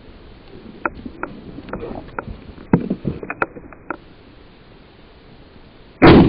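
Footsteps crunching and knocking on loose rocks, then a single loud shotgun shot near the end.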